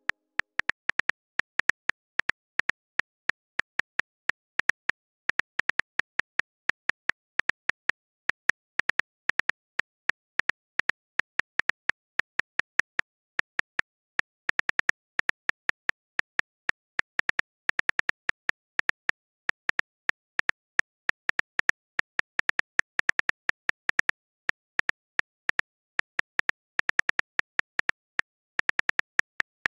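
iPhone on-screen keyboard clicks as a text message is typed key by key: short, crisp ticks, several a second in an uneven typing rhythm.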